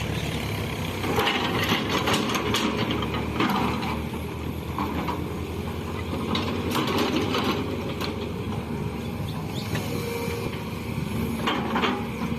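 Excavator's diesel engine running steadily under work, with short scraping and clattering noises every few seconds.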